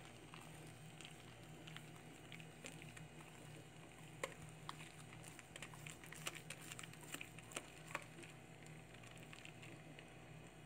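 Faint soft taps and clicks of thick cake batter being poured and scraped with a whisk from a glass bowl into an aluminium tube pan, getting busier about halfway through, over a steady low hum.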